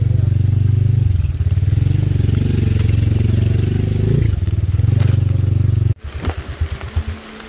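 An engine running steadily, low and muffled, its pitch wavering slightly; it cuts off abruptly about six seconds in, leaving softer rain patter on plastic.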